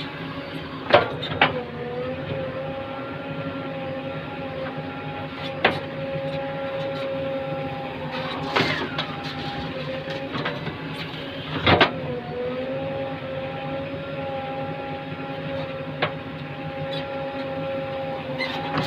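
JCB Eco Xpert backhoe loader running steadily with an even, slightly whining engine note that dips briefly twice. Several sharp knocks or clanks come at intervals, about five in all, the loudest about a second in and near the middle.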